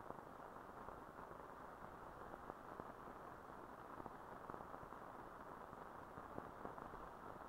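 Near silence: the steady hiss of an old film soundtrack, with faint scattered clicks and crackles.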